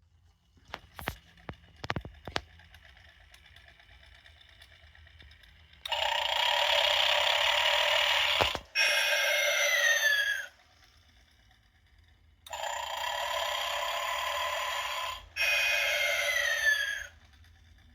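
Snoring Santa snoring twice. Each snore is a loud rasping in-breath followed by a whistling out-breath that falls in pitch. A few light clicks come before the first snore.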